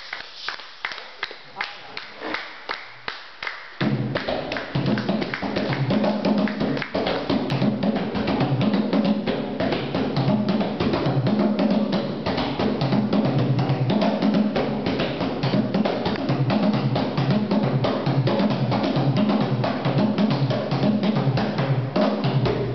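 A steady pattern of sharp clicks, about two or three a second, then about four seconds in, fast hand drumming on two tall wooden skin-headed drums comes in loud, with deep low tones under dense rapid strokes.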